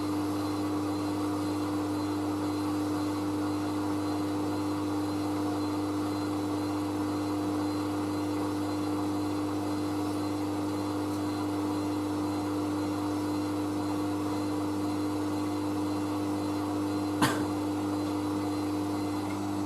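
Hoover AAA160 Whisper 1600 washing machine's drain pump running with a steady hum as the wash water is pumped out after the main wash. A single sharp click comes near the end.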